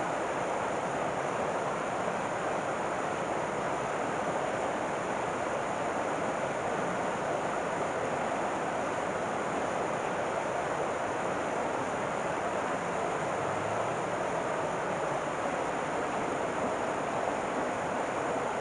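River water rushing, a steady, even sound.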